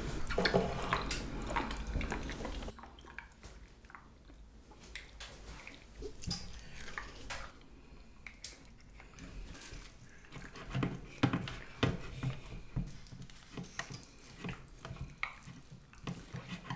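Close-up eating of soy sauce marinated salmon: wet chewing and lip smacks with scattered small clicks of utensils on dishes. It is denser for the first few seconds, then turns to sparser smacks and clicks, with a louder run of them around the middle.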